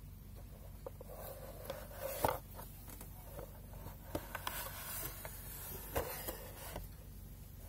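Handling noise from a small 3D-printed plastic case: scattered light clicks, knocks and rubbing, the loudest a knock about two seconds in, over a faint steady low hum.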